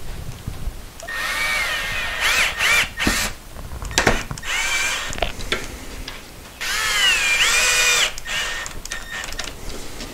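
Cordless drill/driver driving pocket-hole screws into poplar frame pieces. It runs in three bursts, its motor whine rising and falling in pitch as the trigger is squeezed and eased, with short knocks between bursts.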